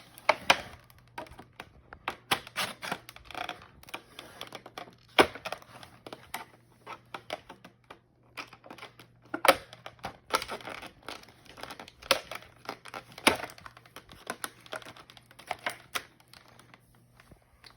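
Packaging of a new cordless drill being handled and pulled open by hand: irregular clicks, taps, tearing and crinkling of cardboard and plastic.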